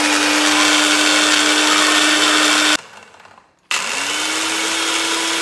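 Electric countertop blender running at full speed, blending avocado and coconut oil into a purée, with a steady motor whine over a loud whirr. It stops about halfway through, then starts again a second later, its motor winding up to speed.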